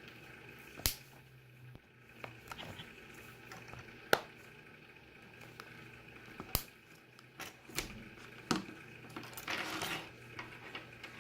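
Plastic back cover of a Samsung Galaxy Tab 4 7.0 being pried off, its clips snapping loose one at a time: a handful of sharp clicks spaced a second or more apart, with a short scraping rustle about nine seconds in.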